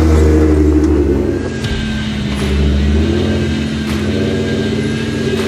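A four-wheel-drive vehicle's engine pulls past close by at low speed. It runs at a steady pitch after a rise in revs just before, then eases off about three seconds in, with a few light knocks.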